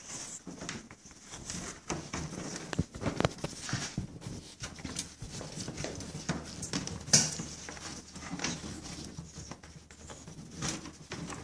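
Irregular light clicks and rustling as a plastic zip tie is worked through the grille of a plastic dog crate by gloved hands, with one sharper click about seven seconds in.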